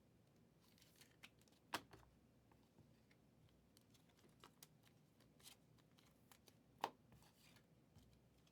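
Faint handling of chrome trading cards: soft sliding and rustling of cards, with scattered light clicks and two sharper clicks, one just under two seconds in and one near seven seconds.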